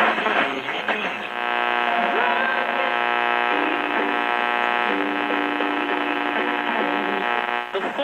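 AM push-button car radio from a 1970 AMC being tuned across the band. A brief jumble of station sound gives way about a second and a half in to a steady buzzing hum of interference, with a faint voice wavering beneath it, played through the radio's speaker.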